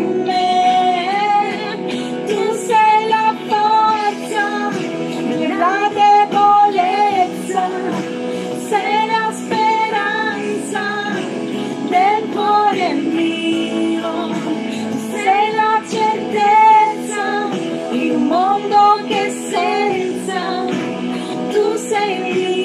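A woman singing an Italian Christian worship song over instrumental accompaniment, her held notes bending in pitch.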